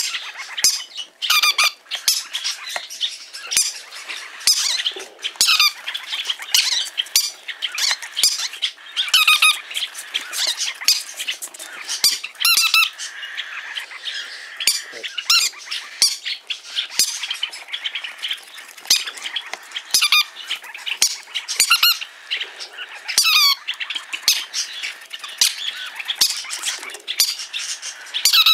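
Green-cheeked conure calling: short, shrill calls repeated in quick runs with brief pauses between them.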